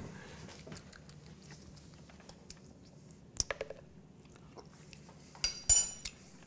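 Soup being tasted from a spoon: soft mouth sounds, a few light clicks about three and a half seconds in, and a sharper ringing clink of the metal spoon near the end.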